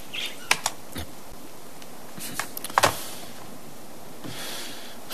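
A few light clicks and knocks over a faint steady hiss, the loudest near three seconds in: a corded telephone handset being hung up on its cradle.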